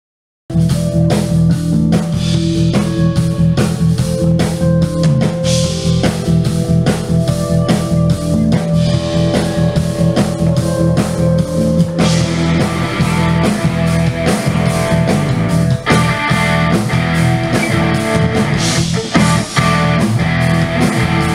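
A live band playing electric blues-rock on electric guitars and drums, starting abruptly about half a second in.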